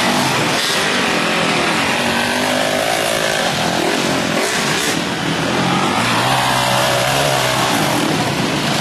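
Several off-road enduro motorcycles revving hard under load on a steep hill climb, with bikes passing close by; engine pitch rising and falling.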